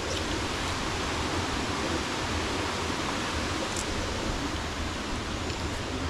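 Waterfall and the stream below it rushing steadily, an even, unbroken roar of falling water.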